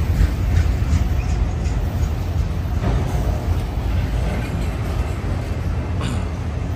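Freight train of autorack cars rolling past, a steady low rumble of steel wheels on the rails with a few faint clicks.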